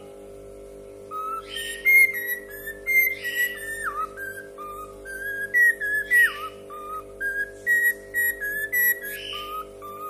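Cockatiel whistling a tune: a run of short whistled notes that step up and down in pitch, with a couple of quick downward slides.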